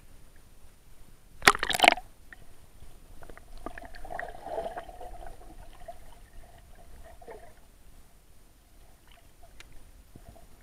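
Water splashing loudly for about half a second as an action camera in an underwater case goes below the surface, then muffled water sloshing and small clicks heard through the case underwater.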